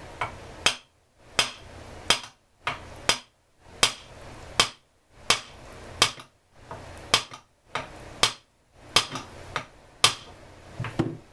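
Light hammer taps on a part of an Echo chainsaw, about seventeen sharp strikes at a steady pace of roughly one every two-thirds of a second, with a duller knock near the end; a stuck, rusted part is being tapped loose.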